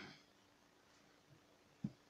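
Near silence: faint room tone with a steady low hum, broken by a single short click near the end.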